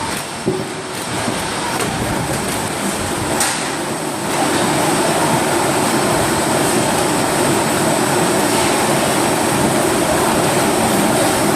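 Rotary veneer peeling lathe running with a steady mechanical rumble, which gets clearly louder about four seconds in.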